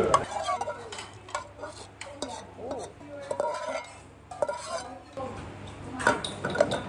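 A utensil stirring in a pot of food, clinking lightly against the pot every so often.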